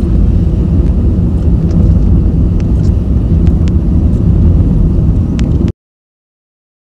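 Car driving at speed, with heavy wind rushing and buffeting over the microphone on top of road and engine noise, and a few sharp ticks. It cuts off suddenly near the end.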